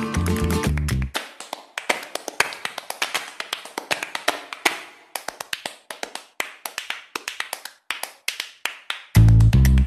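Background music breaks down about a second in: the guitar and bass drop out, leaving a run of quick, uneven percussive taps and claps. The full band with bass comes back loudly near the end.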